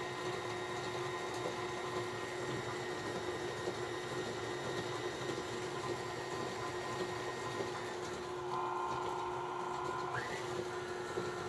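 KitchenAid stand mixer running steadily, its flat beater churning creamed butter, sugar and egg batter in a stainless steel bowl. Its hum shifts slightly about eight seconds in.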